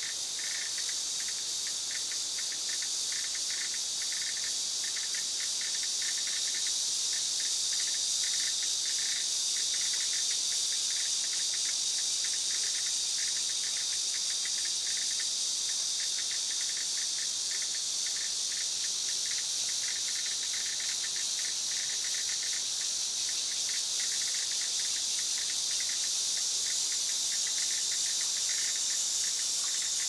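Cicada song: a steady, high-pitched buzz that runs on without a break, with a fast, rattling pulse lower down.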